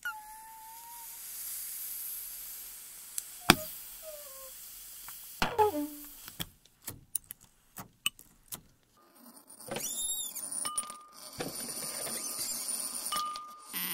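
Dry ice being stirred into firm slime with a metal spatula: a fizzing hiss with a few short squeaks as the ice rubs against the metal, then a run of sticky clicks as the bare slime is worked. Near the end, dry ice fizzing and bubbling in water, with brief faint whistling tones.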